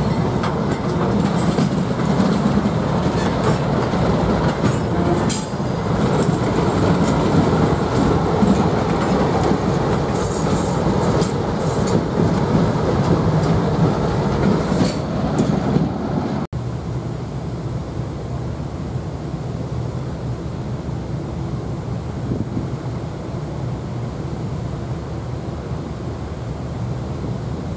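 Freight cars rolling past close by: wheels clattering over rail joints, with short bursts of high wheel squeal. About two-thirds of the way through it cuts abruptly to a quieter, steady low rumble.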